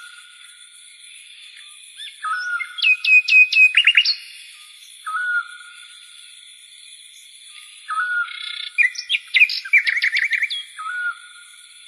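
Bird-like chirping: a short call repeating about every three seconds, with two louder bursts of rapid chirps and trills near the start and again near the end, over a steady high-pitched hum.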